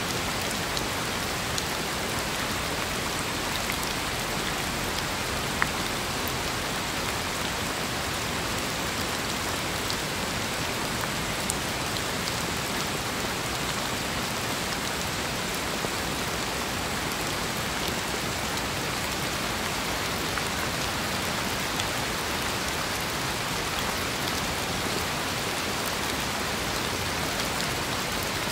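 Steady rain: an even hiss with scattered sharper ticks of single drops.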